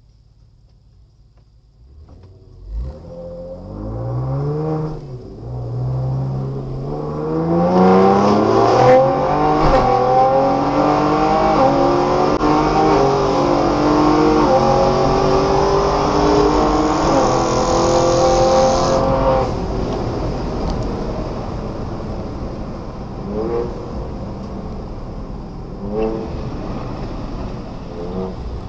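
Car engine heard from inside the cabin, launching from a standstill and accelerating hard. Its note climbs and drops back at each of several upshifts, then eases off at about two-thirds of the way through to a steadier cruise with road noise.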